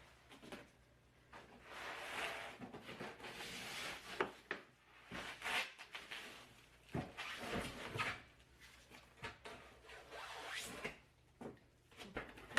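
Cardboard packaging being pulled and torn apart by hand: repeated scraping and rustling bursts of a second or so, with scattered sharp knocks, as a snugly packed boxed printer is worked loose.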